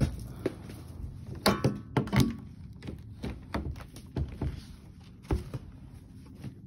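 Knocks and clunks of a white plastic window's handle and sash being worked, a string of separate thuds with the sharpest about a second and a half in, briefly ringing; the sash does not open.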